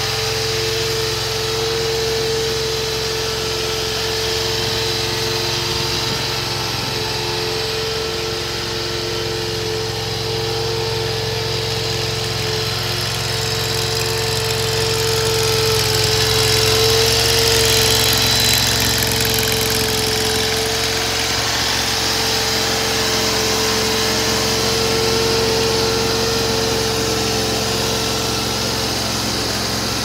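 Small engine of an AGT Industrial LRT23 mini tracked skid steer running steadily at a constant speed, a steady hum with a clear single-pitched drone, growing a little louder around the middle.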